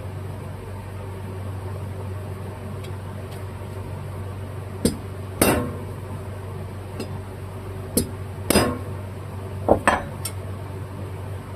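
Scattered sharp metallic clinks and taps of hand tools against small metal carburetor parts as a part is worked into its seat, a few of them ringing briefly, over a steady low hum.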